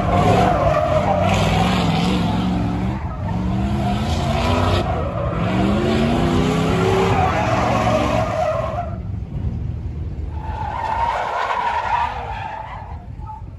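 A vehicle doing donuts: the engine revs up and down while the tyres squeal and skid on the pavement. The sound drops off after about nine seconds, and a shorter tyre squeal follows around eleven to twelve seconds.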